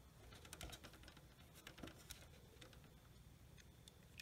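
Faint clicks and light taps of small carburetor parts and screws being handled and fitted by hand: a cluster about half a second in and another around two seconds in.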